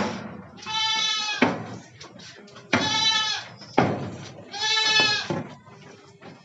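Goats bleating: three drawn-out, high-pitched bleats about a second apart, with harsher, rougher calls between them.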